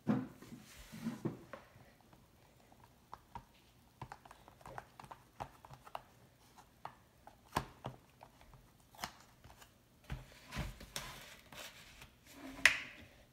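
Plastic spoon stirring and scraping shaving cream in a plastic tub: a run of small irregular clicks and taps, with a louder bump at the start and a louder knock near the end.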